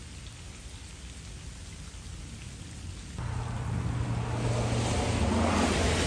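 Rain falling on wet ground and standing puddles, an even hiss that steps up about three seconds in, when a low rumble comes in under it and the rain grows louder toward the end.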